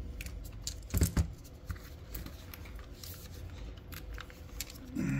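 Hand tools working on a pickup's engine as a small 7 mm fastener is tightened down: scattered light clicks and ticks, with one duller knock about a second in.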